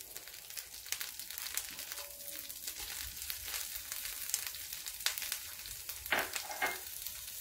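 Chopped onion sizzling and crackling in hot melted butter in a non-stick frying pan, stirred with a wooden spoon.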